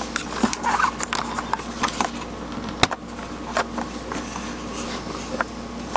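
Handling noise from a video camera being moved and repositioned: irregular clicks and knocks, the sharpest about three seconds in.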